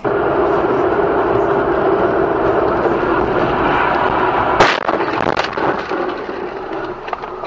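Loud, steady road and driving noise inside a moving car. About four and a half seconds in comes a single sharp bang of an impact, typical of a collision.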